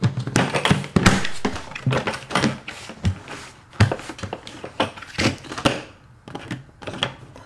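Plastic 5-gallon bucket and its lid being handled and pressed together: a string of irregular clicks, knocks and scrapes, with the sharpest knocks about a second in and near four seconds.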